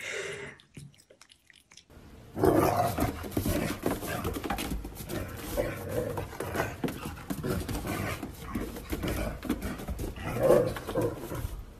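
A dog vocalizing repeatedly in short growly sounds over a steady rough noise, starting about two seconds in.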